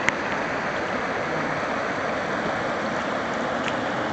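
Floodwater rushing steadily across a road, with a brief click just after the start.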